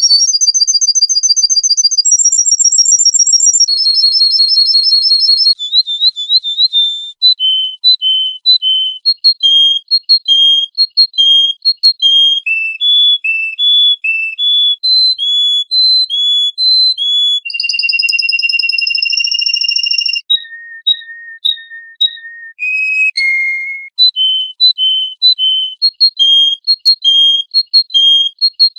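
Songbird singing a long, varied song of clear whistles: fast trills at first, then runs of short repeated notes about twice a second, a long held note, a few lower notes, and more repeated notes near the end.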